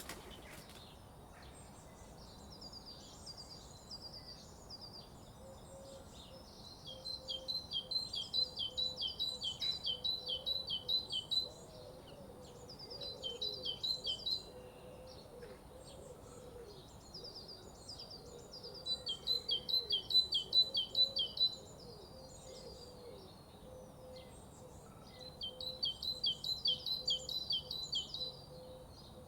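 Morning birdsong: one bird sings four loud phrases of rapid repeated high notes, each lasting a few seconds, with softer chirps from other birds in the gaps.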